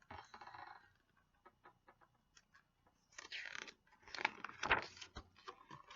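Faint paper rustling and handling of a picture book, a page being turned: a brief rustle at the start, then scattered crinkles, scrapes and a couple of soft thumps from about three seconds in.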